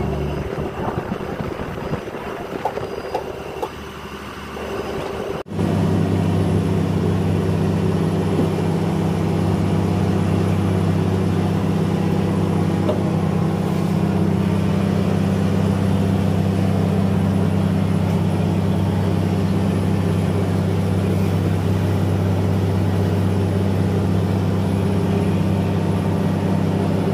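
Irregular knocks and clicks of fish and crates being handled for about the first five seconds. Then, after a sudden cut, a fishing trawler's diesel engine runs with a steady, loud, low drone.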